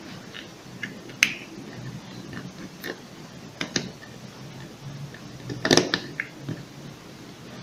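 Scattered small clicks and taps of plastic and metal parts being handled and pressed into an opened electric hair clipper's housing, the loudest cluster a little before the end.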